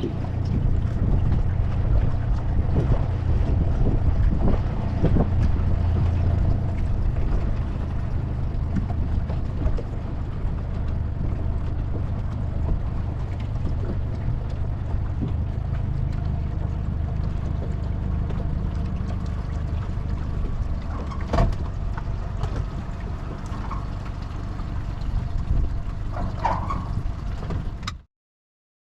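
Small boat's outboard motor running steadily, with a low rumble and the rush of wind and water. The sound cuts off suddenly near the end.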